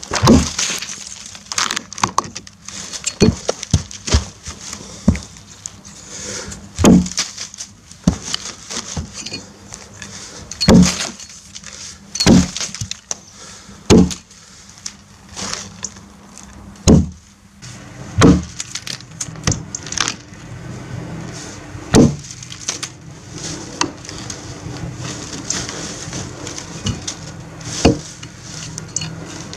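Helko Werk Tasmanian axe chopping into a log: more than a dozen sharp strikes of the steel head biting into the wood, one to three seconds apart at an uneven pace. A faint low hum comes in about two-thirds of the way through.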